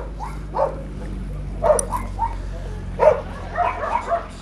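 German Shepherd dog making several short vocal sounds, each a fraction of a second, spread through a few seconds, over a faint low hum.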